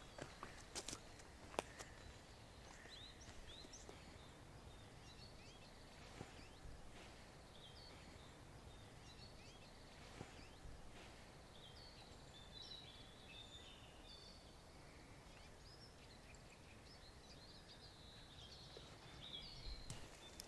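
Quiet ambience of small birds chirping here and there. A few footsteps on a dirt path near the start, and a rustle of leaves near the end as a hand brushes into an elder shrub.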